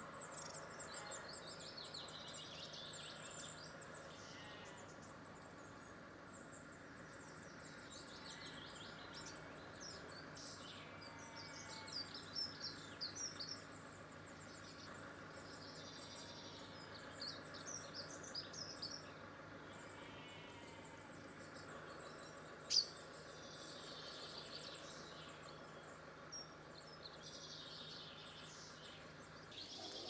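Small garden birds chirping and singing in repeated short bouts, faint over a steady background hiss, with one sharp click about three-quarters of the way through.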